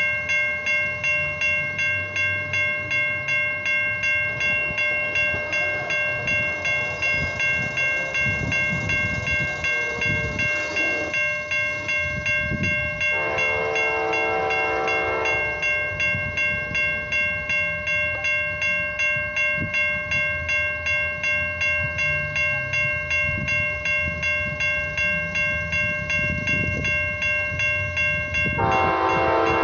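Railroad crossing bell ringing in rapid, even strokes as the crossing gates come down. About 13 seconds in, the approaching Amtrak train, led by a GE P42DC locomotive, sounds its horn for about two seconds, and it sounds again near the end.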